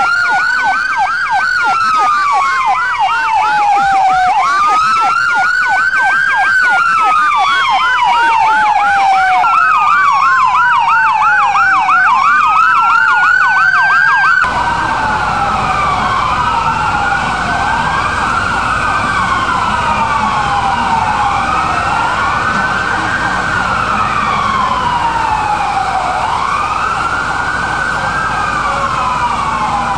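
Several fire trucks' electronic sirens sounding together: overlapping wails rising and falling every few seconds, with a fast yelp over them in the first half. About halfway the yelp stops and the wails continue.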